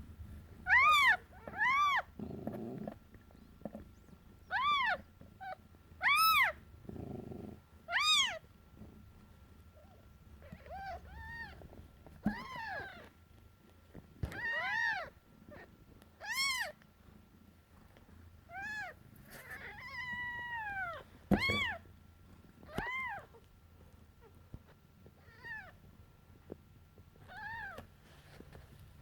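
Newborn kittens mewing: short, high-pitched squeaks that rise and fall, about seventeen of them at irregular intervals, some louder than others. A brief low rumble comes twice in the first eight seconds.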